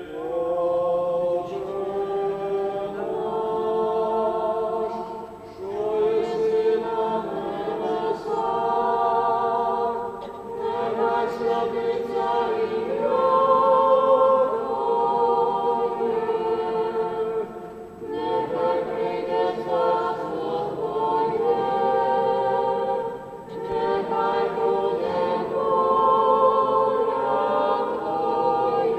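A group of voices singing Ukrainian Catholic liturgical chant without accompaniment, in long held phrases with brief pauses between them.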